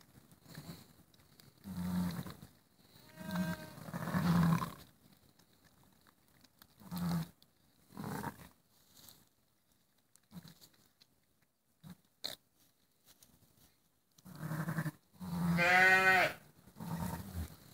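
A ewe's low, rumbling calls in short repeated bursts, the soft talk a ewe makes to her newborn lamb while licking it. Higher-pitched bleats come about three seconds in and, louder, near the end.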